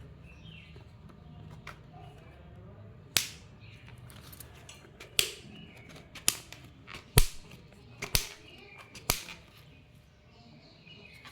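Sharp clicks and knocks from spray nozzles and their packaging being handled, about six of them roughly a second apart from about three seconds in.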